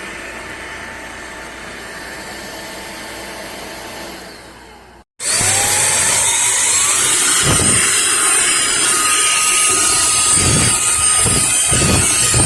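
drepre K7 Pro cordless stick vacuum running with a steady whir that fades out about four seconds in. After a short gap the motor starts again, its whine rising and settling to a steady high tone, with several low thumps.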